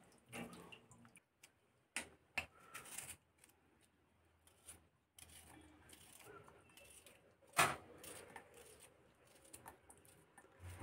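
Small kitchen knife cutting tomatoes over a steel bowl: scattered soft clicks and taps, with one sharper knock a little past halfway.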